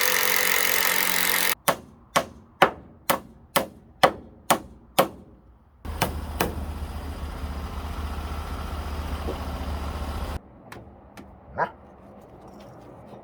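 Construction work on timber: a power tool runs briefly and stops, then about seven hammer blows land roughly two a second, then a power tool runs steadily for about four and a half seconds and stops.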